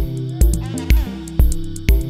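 Background music with a steady dance beat, about two kick-drum hits a second under sustained bass and melody notes.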